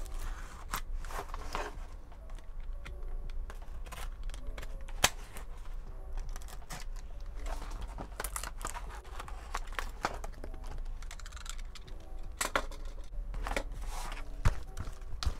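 Utility knife cutting and scraping through a cardboard mailer, with irregular scratching and tearing of the cardboard and a few sharp clicks, the loudest about five seconds in and again near the end.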